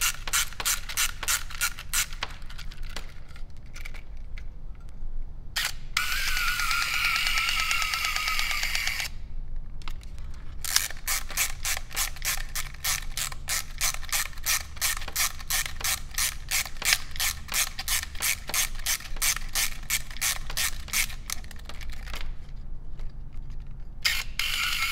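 Canon Dial 35's clockwork spring-motor wind grip being ratcheted up, a steady run of rapid clicks. About six seconds in, the freshly cleaned and lubricated spring motor whirs for about three seconds, its tone slowly falling. From about eleven seconds there is more ratchet winding, and near the end the motor starts whirring again.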